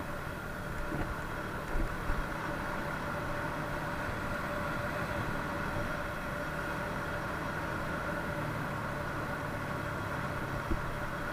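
Moped engine running at a steady cruise with road noise, with a few short knocks about two seconds in.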